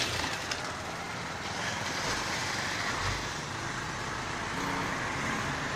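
Steady road traffic noise, with a low rumble swelling about two seconds in.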